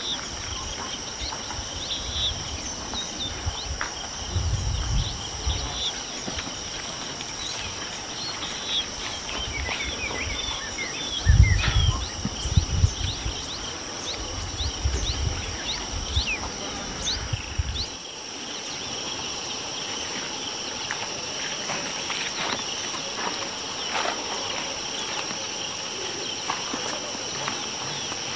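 Steady high buzzing of insects at two pitches, with short bird chirps repeating through the first two-thirds. Bouts of low rumble come and go, loudest about eleven seconds in, and stop about eighteen seconds in.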